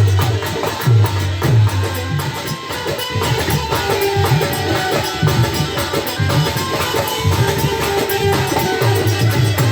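Indian lehra music: a repeating melody held over hand-drum strokes. The drums' low strokes glide down in pitch, and they fall thickest near the start and the end.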